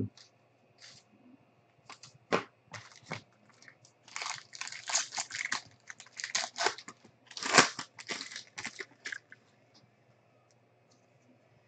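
Foil wrapper of a trading-card pack being torn open and crinkled in the hands: a few scattered ticks and rustles first, then a dense run of crackling tears from about four seconds in, loudest a little past the middle, before it goes quiet.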